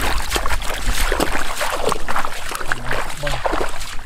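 Bare feet splashing and sloshing through shallow muddy floodwater, in quick irregular splashes.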